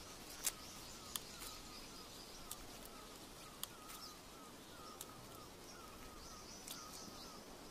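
Faint forest ambience: a soft, high chirping call repeated steadily, with a few light clicks scattered through it.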